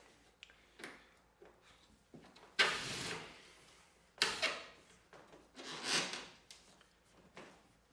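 Split spruce root being pulled through a lashing hole in the birchbark and around the wooden gunwale: three scraping pulls about a second and a half apart, each lasting about half a second to a second, with light taps and rustles between.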